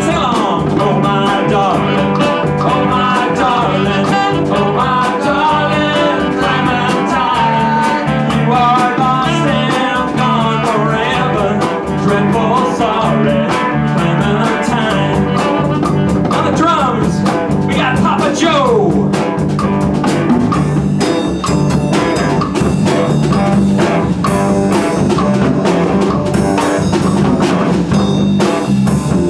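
Live band playing blues-flavoured music, with a saxophone carrying a wavering melodic line over electric guitar, hand drum and drum kit. Drum strokes come more to the fore in the second half.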